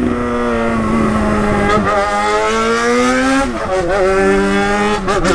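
Yamaha XJ6's inline-four engine with a loud exhaust, running while the motorcycle is ridden in traffic. The engine note sinks slowly, climbs for about a second and a half, drops sharply about three and a half seconds in, then holds steady.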